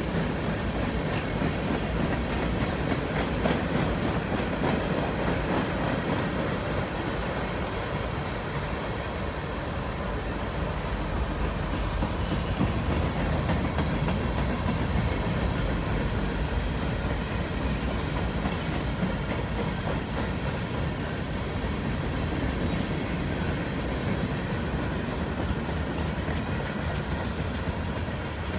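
Freight cars of a long mixed manifest train rolling past: a steady rumble of steel wheels on the rails, with repeated clicks as the wheels cross the rail joints.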